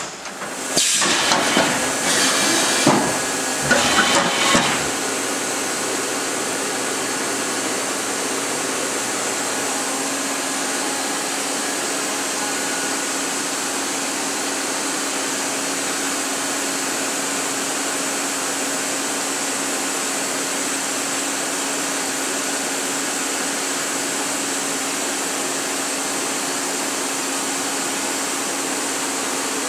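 Matsuura RA1 CNC vertical machining center running: loud, irregular mechanical noise for the first few seconds, then a steady hiss with a low hum.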